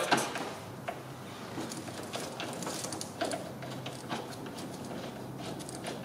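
Scattered light clicks and taps of a hand tool turning a reverse-threaded bolt inside a car door, tightening it counterclockwise.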